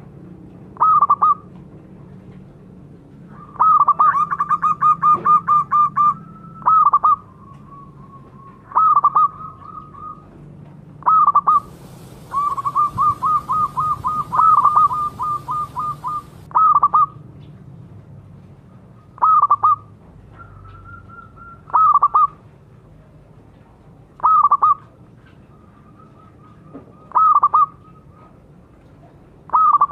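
Zebra dove cooing: short coos repeated every two to three seconds, with two longer runs of quick staccato notes, the first about four seconds in and the second from about twelve to sixteen seconds in.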